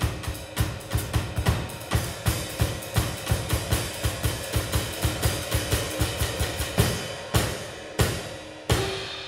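Drum kit played in a jazz trio: a busy, even run of snare, bass drum and cymbal strokes, thinning to a few separate hits near the end.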